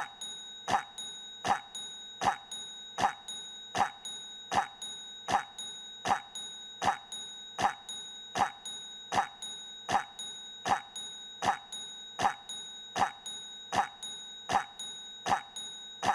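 A short cough sound repeated in a loop, one cough about every three-quarters of a second, each one the same, over a steady high-pitched whine.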